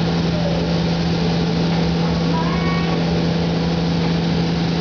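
Spray booth noise: a steady low hum with an even hiss over it, from the booth's ventilation and the spray gun's compressed air as clear coat is sprayed.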